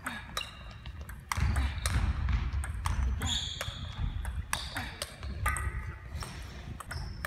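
Table tennis rally: the celluloid ball clicking off the rubber rackets and bouncing on the table, about two to three hits a second, as one player returns with forehand chops.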